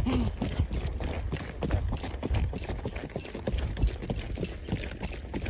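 Horse hooves striking a dirt forest road in a steady, irregular run of thuds as the horse is ridden along, over a low rumble.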